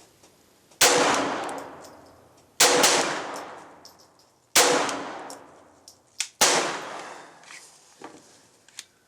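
Four gunshots about two seconds apart, each followed by a long echoing decay, with a few small metallic clicks between and after them.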